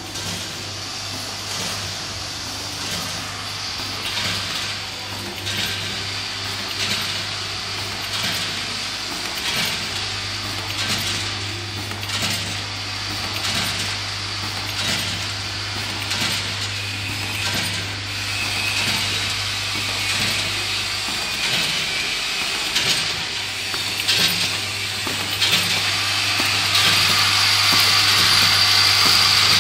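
Screw-counting packaging machine running: its vibratory bowl feeders hum steadily while screws rattle along the bowl tracks. A clatter repeats about every second and a half, and the rattling gets louder near the end.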